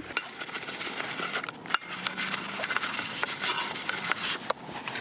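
Soapy wash sponge scrubbing a wet, foamed alloy wheel: a steady wet rubbing hiss with scattered light clicks and crackle.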